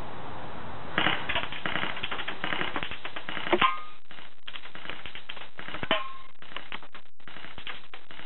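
Rapid, irregular clatter of airsoft BBs from full-auto fire striking the board and skateboard around the target. A few sharper hits, about three and a half seconds and six seconds in, ring briefly on the aluminium soda can.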